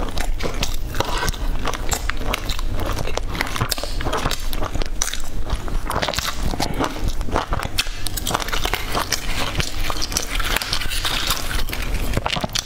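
Close-miked chewing and biting of crispy fried food, with a dense run of crackly crunching clicks throughout.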